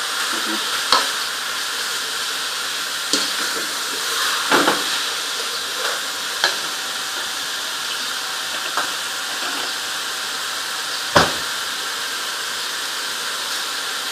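Carrots and raisins frying in a pot of caramelized sugar and spices, a steady sizzle, with a spoon stirring and knocking against the pot a few times, the loudest knock about eleven seconds in.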